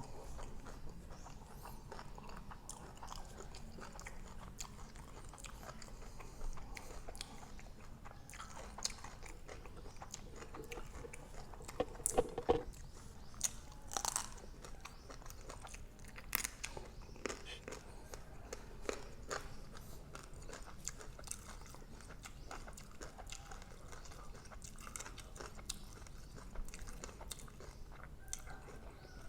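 A person chewing food, with soft crunches and scattered small clicks; a few louder clicks come about halfway through.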